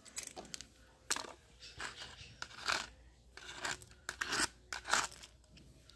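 Plastic toys and a small screwdriver being set down and slid across a rough concrete floor: a string of about seven short scrapes and rattles.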